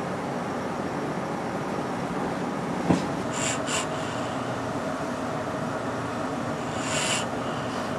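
A steady background hum, with one sharp click about three seconds in. Three short hissing sounds follow: two close together just after the click, and one longer about seven seconds in.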